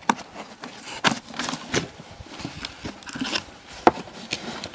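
Long cardboard box being opened by gloved hands: cardboard scraping and rustling, with a string of short taps and knocks. The sharpest come just after the start and about four seconds in.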